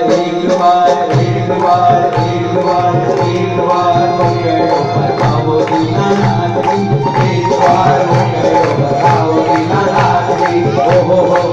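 Live Jain devotional song (stavan) sung into a microphone over a steady, rhythmic percussion beat.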